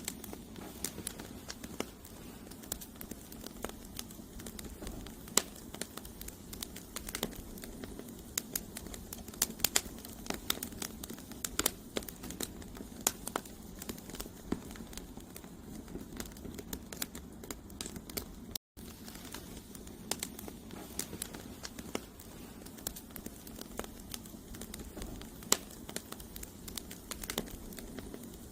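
Campfire of burning firewood logs, crackling and popping steadily, with a low, even rush of flame underneath.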